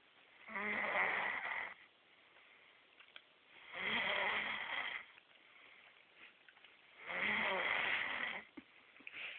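Snoring: three long snores about three seconds apart, with quiet between them.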